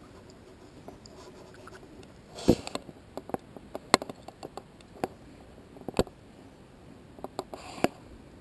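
Close handling noises as a caught chub is held and unhooked by hand: scattered sharp clicks and taps with a couple of brief rustles, the loudest about two and a half seconds in.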